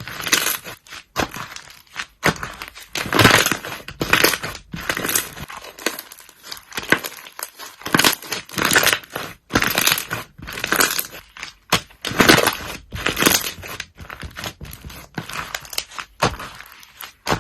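Slime being worked by hand: an uneven run of short, noisy squishing bursts, one after another with brief gaps.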